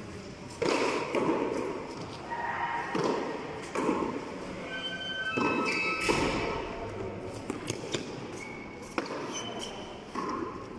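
Frontón rally with a soft tennis ball: the ball is slapped by hand and thuds against the concrete wall, a hit every one to three seconds, each one echoing in the big walled court. Sneakers give short squeaks on the floor between hits.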